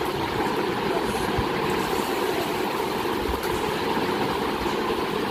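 Sugar water being poured back and forth between a glass and a steel bowl to mix it, over a steady machine-like whir.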